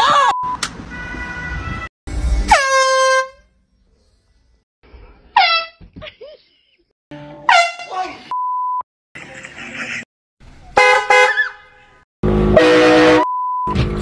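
A string of handheld air horn blasts, each answered by a startled scream or yell that drops sharply in pitch, about three times over. Three short, steady beeps cover words between them.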